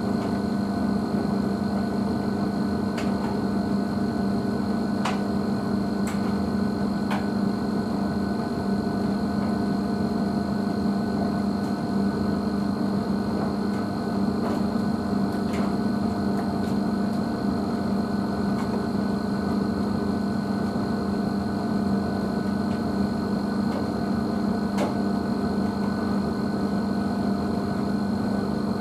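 Blomberg WNF9448 front-loading washing machine's motor running at a steady, unchanging speed while the drum turns a heavy dog-bedding load during a repeated attempt to balance it before the final spin. A few faint knocks come from the load now and then.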